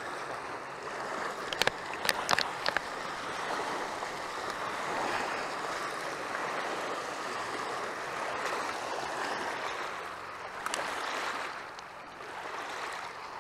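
Small waves lapping and washing over a rocky, pebbly lakeshore. A few sharp clicks come about two seconds in.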